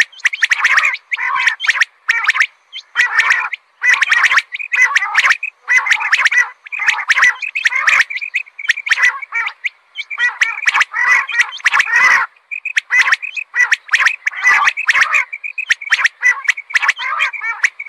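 Common quail calling: short bursts of rapid, rasping call notes repeated again and again with brief gaps. It is the female quail's call, used as a lure for hunting.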